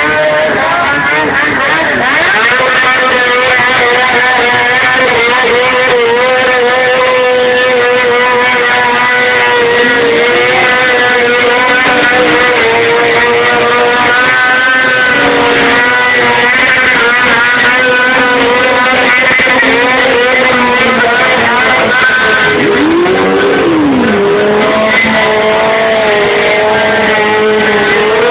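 Motorcycle burnout: the engine held at high revs while the spinning rear tire squeals, a loud, steady, slightly wavering pitch that briefly dips and rises again about three-quarters of the way through.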